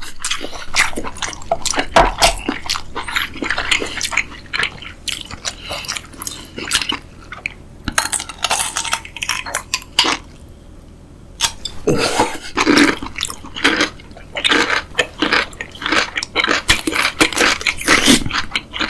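Close-up eating sounds of a person chewing: wet mouth clicks and smacks in quick, irregular succession, easing off briefly around the middle.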